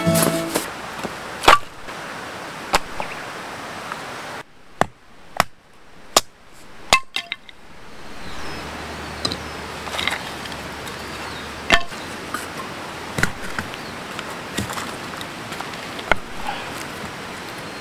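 Small hatchet chopping firewood into kindling: a series of sharp wooden knocks, one every second or two.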